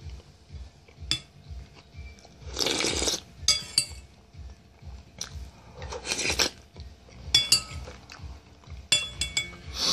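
Close-up eating: steady chewing of bread and soup, with a metal spoon clinking against the bowl a few times. Three louder noisy bursts of about half a second come between them.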